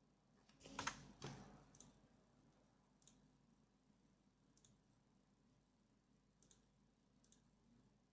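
Near silence, broken by a short cluster of sharp clicks about a second in, then a few faint high clicks spaced irregularly every second or two.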